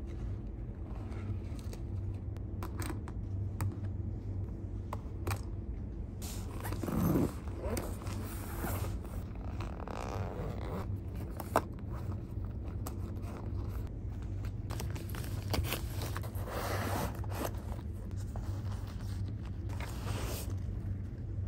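Packing a fabric laptop bag by hand: rustling, a few sharp clicks and knocks, and stretches of zipper and fabric noise, over a steady low hum.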